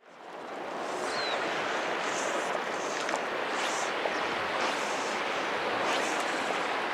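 Steady rush of a river running over stones, fading up from silence at the start and then holding level, with one short high chirp about a second in.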